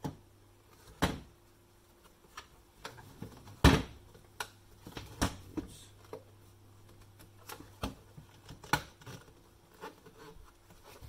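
A flat-blade screwdriver prying at the plastic housing of a Nescafé pod coffee machine: scattered sharp plastic clicks and knocks as the snap clips are worked and the parts are handled, the loudest knock about three and a half seconds in.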